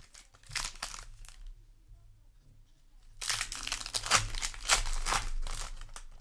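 Crinkling and tearing of a foil booster pack wrapper being handled and torn open: a short crackle near the start, then a denser stretch of crinkling lasting about three seconds from halfway through.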